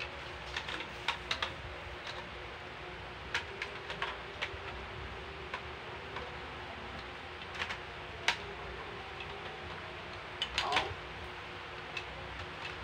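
Large plastic Lego bricks giving scattered light clicks and knocks, a dozen or so, as they are handled and pressed onto a model, over a steady low background hiss.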